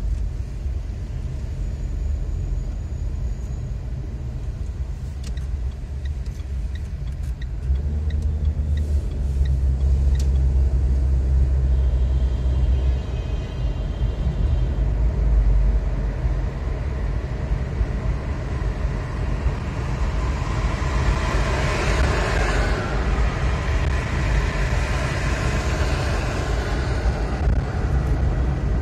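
Car driving through city streets, heard from inside the cabin: a steady low rumble of engine and road, swelling for a few seconds near the start. A run of faint ticks comes early, and a louder rushing hiss of tyres and passing traffic swells about two thirds of the way through.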